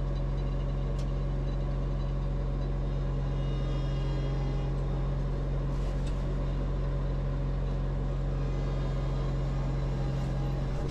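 New Holland Boomer 55 compact tractor's diesel engine running at a steady pitch, heard from inside the cab as the tractor drives in the mid range of its three-range hydrostatic transmission.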